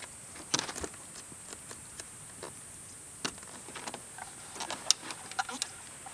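Scattered light metal clicks and clinks as steel tire-chain links and the hooks of a spider tensioner are handled and hooked onto a snow chain on a truck wheel.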